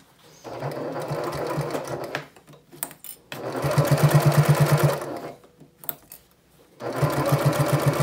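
Home sewing machine stitching in three short runs of about two seconds each, with pauses between them; the middle run is the loudest. It is sewing a long stitch through layered fabric and zipper tape.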